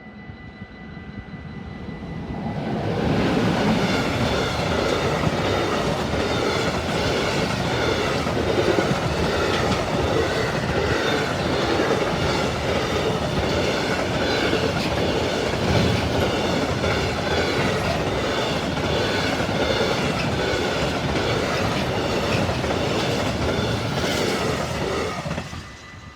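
Freight train of tank-container wagons passing close by, its wheels clattering over the rail joints in a steady rhythm. The sound builds over the first few seconds, stays loud and even, then falls away sharply near the end.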